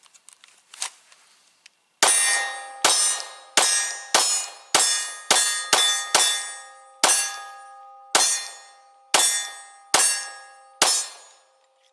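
A Glock 23 Gen4 .40 S&W pistol fires a string of about a dozen shots, each with a sharp crack and a short echo tail. The shots come roughly half a second to a second apart and space out a little near the end. A steady ringing tone hangs on between and after the shots.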